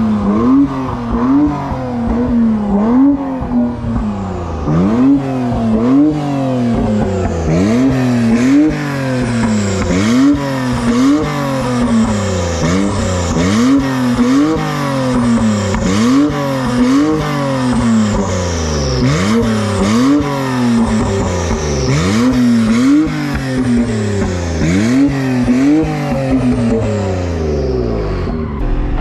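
A drifting car: its engine revs climb and drop back about once a second in a steady rhythm, with tyres squealing.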